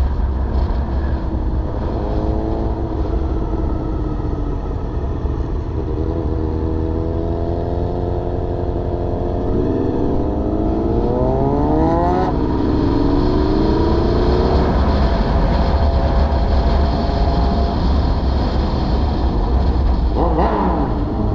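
Honda VFR800Fi motorcycle's V4 engine pulling through the gears, its pitch climbing, dropping at a gear change and climbing again about halfway through, with another rise near the end. Heavy wind rumble on the microphone runs underneath.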